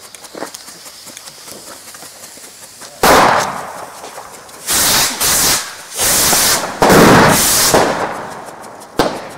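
Loud firecracker explosions. A sharp bang comes about three seconds in, several more loud blasts follow over the next few seconds, and a small pop comes near the end.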